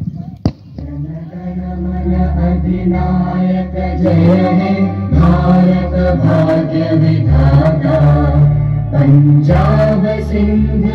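A sung anthem: voices holding long notes over a steady low accompaniment, swelling in about a second in after a single sharp knock.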